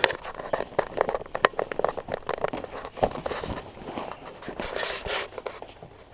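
Close handling noise: a quick run of small clicks, knocks and rustling, dense for the first few seconds, then sparser, with a short rustle near the end.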